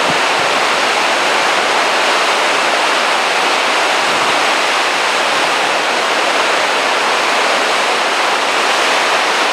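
Rough sea waves breaking and churning against rocky sea cliffs: a steady, dense rush of surf with no separate wave breaks standing out.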